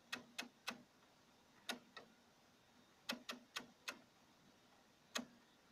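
Electromechanical relay clicking as it switches itself on and off in a single-relay oscillator timed by a 3000 µF capacitor. About ten sharp clicks at uneven intervals, some in quick runs of two to four, others a second or more apart.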